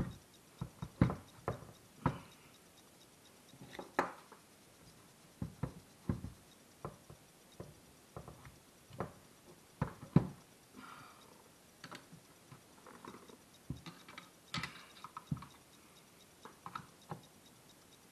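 Irregular clicks and light knocks of a screwdriver prying and nudging at the drive parts of a Ford Explorer's power seat track, with the loudest knocks about a second in and near the middle.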